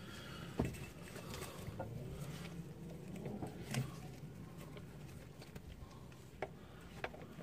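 Scattered light clicks and knocks from handling CV joint kit parts: the metal joint, the splined driveshaft end and the rubber boot. A faint low hum runs underneath.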